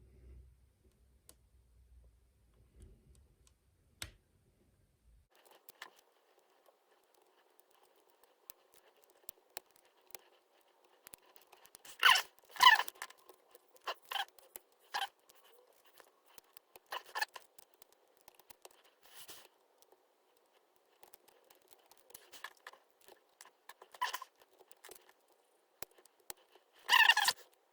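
Metal lock pick scraping and clicking against the pins inside a six-pin pin-tumbler challenge lock held under tension: scattered small clicks and louder scraping strokes, the loudest about twelve seconds in and near the end.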